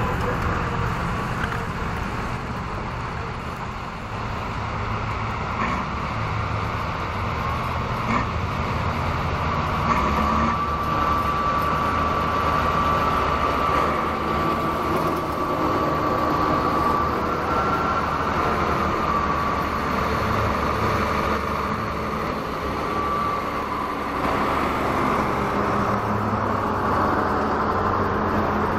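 Large Schlüter diesel tractors driving slowly past one after another, their engines running steadily. A steady high-pitched whine sounds over the engine through the middle stretch.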